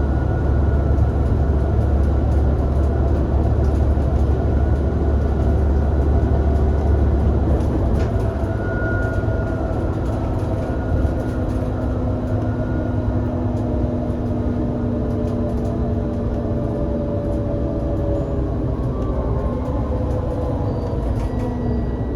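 Irisbus Citelis 18 GNC articulated bus under way, its IVECO Cursor 8 six-cylinder CNG engine giving a heavy low drone that eases about eight seconds in. After that a steady whine carries on and falls in pitch near the end as the bus slows.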